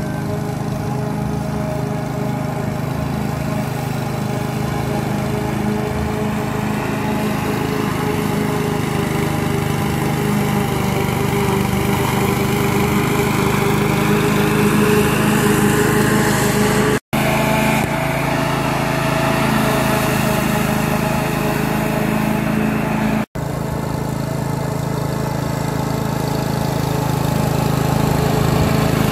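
Duricut 820 walk-behind petrol lawn mower's 159cc single-cylinder engine running steadily as the mower is pushed through grass, cutting it. The sound cuts out completely for an instant twice, in the second half.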